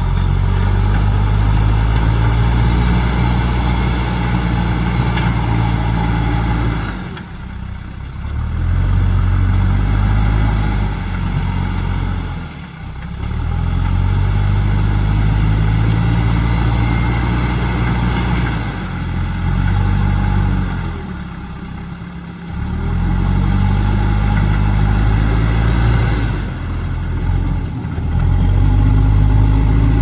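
JCB 3DX backhoe loader's diesel engine working under load while the front loader bucket pushes through soil and roots. The revs drop and climb back about four times.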